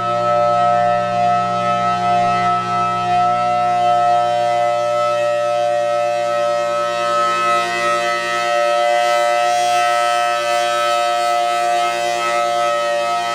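Federal Signal Thunderbolt 1000T outdoor warning siren sounding its full alert signal: a steady, loud dual-tone chord held at full pitch. The siren still sounds a little off, or "sick", in the uploader's words.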